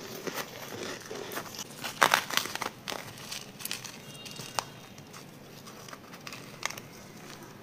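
Powdery freezer frost crunching and crackling as gloved hands dig into it and crumble it, with plastic rustling. The sound comes in irregular crackles, loudest about two seconds in.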